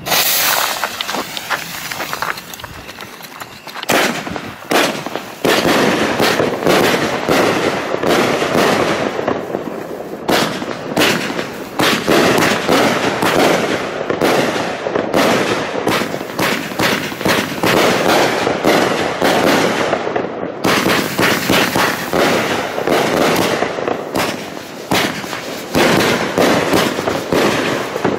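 100-shot firework cake (Zena "Asiatic Cheetah") going off. Its lit fuse hisses at first, then from about four seconds in the cake fires a long, rapid string of shots and bursting shells.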